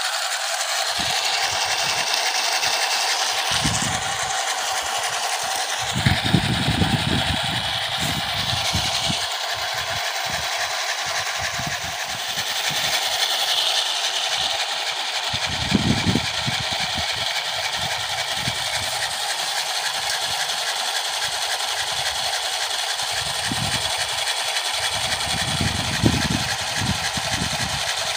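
Two 775 brushed DC gear motors of a homemade RC car running flat out on a 12-volt battery, a steady high-pitched whine with gear noise, spinning the wheels in a burnout test.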